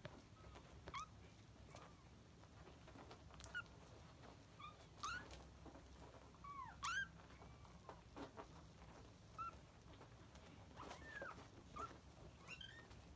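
Kittens mewing: about a dozen short, faint, high-pitched mews, each rising then falling, spaced a second or so apart.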